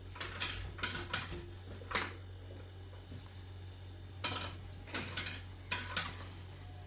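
A series of sharp clinks and clatters, irregularly spaced, clustered near the start and again in the second half, over a steady low hum.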